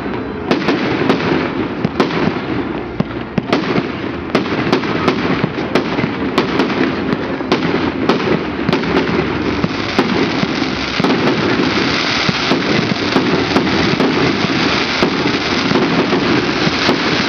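A dense fireworks barrage: many sharp bangs and cracks, several a second, over a continuous crackle.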